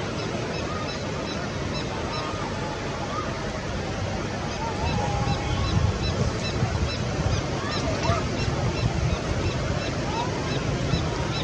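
Steady rush of river water, growing louder about halfway through, with a faint high chirp repeating a few times a second over it.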